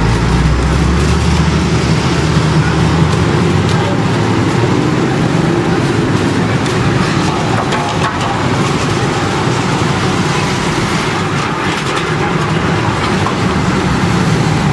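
Steady traffic noise of a busy city street, with a low engine rumble fading in the first second.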